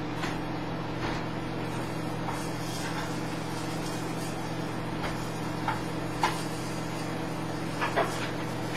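Steady hum of a microwave oven running, with faint frying from the pan. A few light clicks of a spatula against the frying pan come in the second half as the veggie patties are turned.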